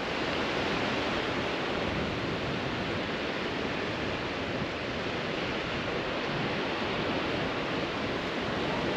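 Steady hiss of sea surf mixed with wind, an even wash with no single events standing out.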